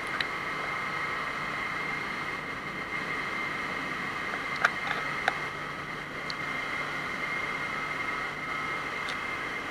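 Steady machinery noise of a container ship's engine room, an even din with a constant high whine through it. A few sharp clicks come about halfway through.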